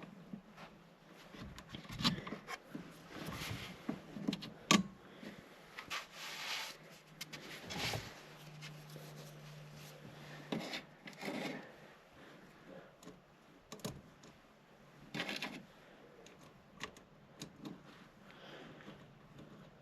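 Irregular clicks, knocks and short scraping and rubbing noises of hand work on parts and tools, with a low hum that comes and goes.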